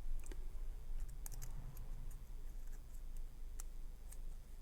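Small, irregular metallic clicks and taps from a shim being worked into a rim lock cylinder to take it apart, over a steady low hum.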